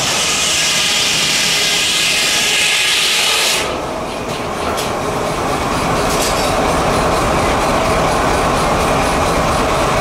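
Antique sawmill driven by a steam tractor: the saw blade cutting through a log with a loud hiss that stops abruptly about three and a half seconds in, after which the mill keeps running with a steady low rumble.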